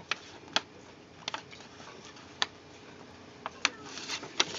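Sheet of printer paper crackling and rustling in the hands as it is folded and its cut tabs are pushed inward. There are scattered sharp crinkles, and the rustling gets busier near the end.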